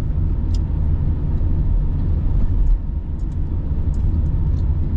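Car cabin noise while driving at low city speed: a steady low rumble of engine and tyres on the road, heard from inside the car. The automatic gearbox shifts down through the gears, with a slight drop in level about three seconds in.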